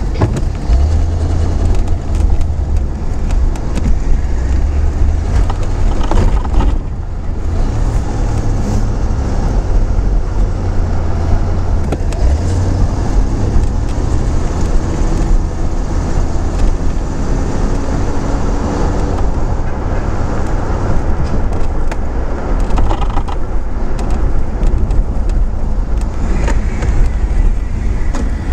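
1983 Buick LeSabre driving on city streets, heard from inside the cabin: a steady low engine and road rumble, with the engine pitch rising and falling a little as the car speeds up and slows.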